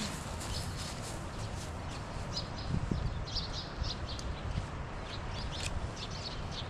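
Wind rumbling on the microphone, with short, high chirps of small birds scattered through it.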